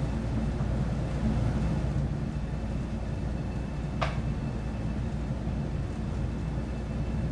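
Steady low background rumble, with a single sharp click about four seconds in.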